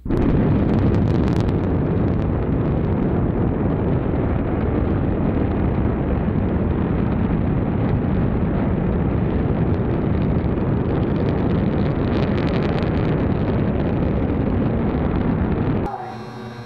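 Five-segment SLS solid rocket booster firing on a static test stand: a loud, steady, deep rocket rumble with crackle, starting suddenly at ignition. It cuts off suddenly near the end.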